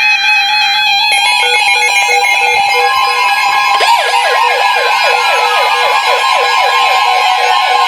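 Several NOAA weather radios sounding alerts at once: layered steady tones and rapid beeping. About three seconds in, the steady 1050 Hz warning alarm tone starts, announcing the incoming warning. From about four seconds in, a fast, repeating, falling siren-like warble joins it.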